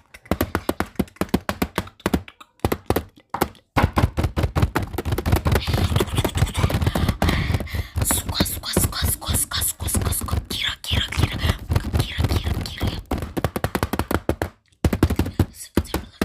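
Fingers tapping rapidly on a camera in dense, quick strokes, with a short pause about three seconds in.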